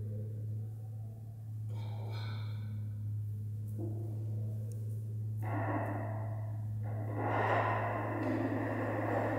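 A steady low hum runs throughout. A rushing noise comes in faintly about two seconds in, then grows louder from about halfway and swells near the end.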